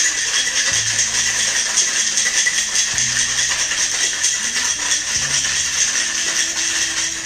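Ice rattling hard inside a metal cocktail shaker, shaken fast and without a break, then stopping near the end.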